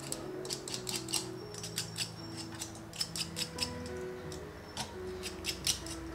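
Soft background music with slow sustained notes, over irregular small clicks and snips from hands working the bundle of wire leads.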